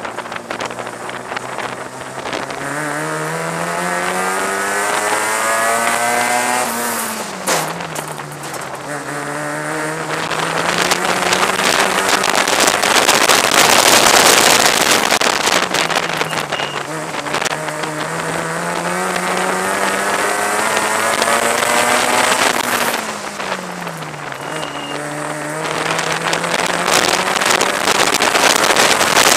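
Senior mini stock car's engine heard from inside the car while racing: the revs climb steadily for several seconds and then drop sharply as the driver lifts off, followed by a loud rushing noise before the engine pulls up again. The climb and drop happen twice.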